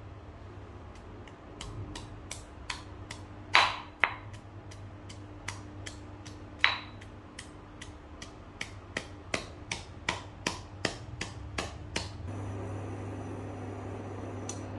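Stone pestle pounding in a stone mortar, crushing ginger and lemongrass with sharp knocks about three a second, a few heavier strikes among them. The pounding stops about twelve seconds in.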